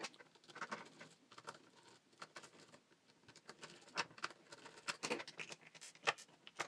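Small clicks, taps and scratching of hard plastic parts and a screwdriver as a cheap plastic one-hand quick clamp is unscrewed and taken apart, with a few sharper clicks in the second half.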